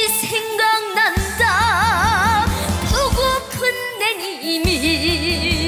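A boy singing a Korean trot song into a stage microphone over a band backing track, with a wide vibrato on his held notes.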